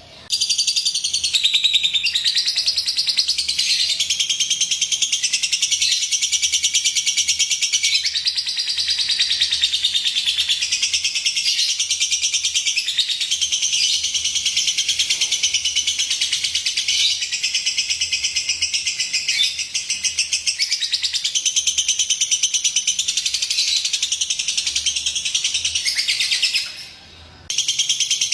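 Lovebird chattering in a long, unbroken string of rapid high chirps, the kind of lure song played to set other lovebirds singing. It breaks off for about a second near the end, then starts again.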